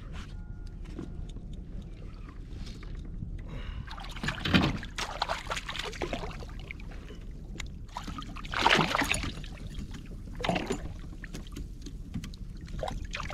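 Water splashing and slapping beside a fishing kayak, with three louder splashes about 4 s, 9 s and 10 s in, over a steady low rumble of wind and sea.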